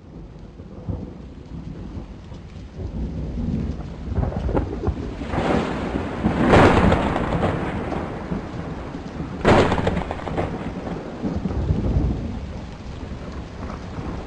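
Thunderstorm: steady rain, faint at first and growing louder, with rumbling thunder. A long thunderclap swells about six seconds in, and a sharper crack comes about nine and a half seconds in.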